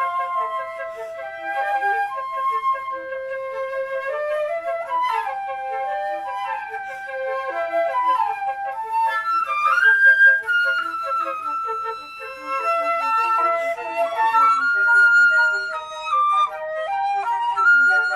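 A quartet of concert flutes playing together: held melody notes on top over quick, short detached notes in the lower parts, with fast rising runs about five and ten seconds in.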